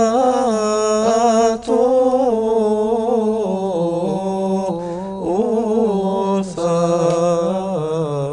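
A solo male voice chanting a phrase of a Coptic Resurrection hymn in long, ornamented held notes, the pitch winding up and down around each note, with a short breath about a second and a half in.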